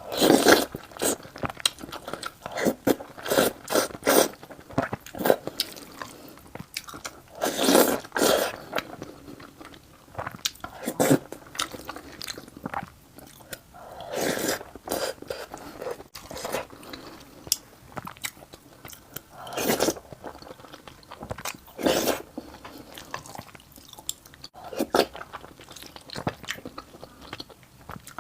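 A person eating tomato over rice close to the microphone: irregular bites and chewing, with sharp clicky bursts every second or two.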